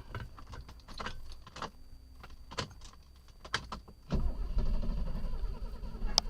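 Mercedes 250S straight-six stalled and silent, with a few sharp clicks. About four seconds in, a steady low rumble starts and runs on as the engine is cranked again. It is starved of fuel and fails to start.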